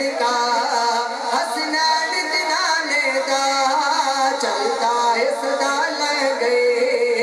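A young man's voice singing a devotional naat solo into a microphone through a PA system, with long held, ornamented notes that glide up and down. No instruments can be made out.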